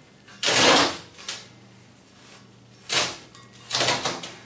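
Ceramic fiber blanket rubbing and scraping against the inside of a forge chamber as it is pushed into place: four separate rustling scrapes, the longest near the start.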